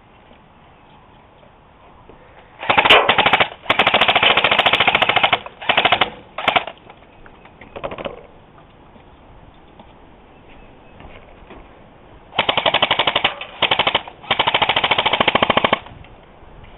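Airsoft guns firing on full auto: a run of bursts of rapid, evenly spaced shots in the first half, a pause, then three more long bursts near the end.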